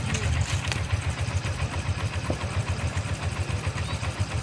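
An engine running steadily at idle, with a rapid, even beat of low thuds.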